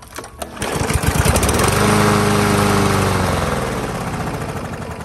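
Briggs & Stratton lawn mower engine starting up and running. Its pitch sags slightly after a couple of seconds and the sound eases off toward the end.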